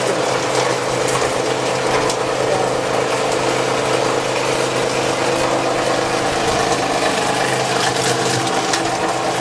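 PC250 plastic crusher running: a steady motor hum under a rapid, continuous clatter and cracking as its blades chop hard plastic scrap fed into the hopper.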